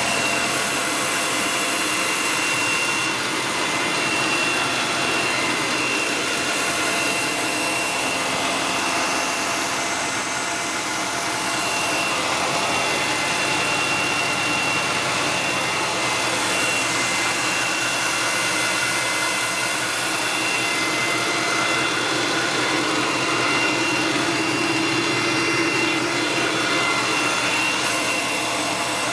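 Engine of a 2006 Chaparral 274 Sunesta deckboat running steadily during a run test. There is a steady high whine over an even rushing noise.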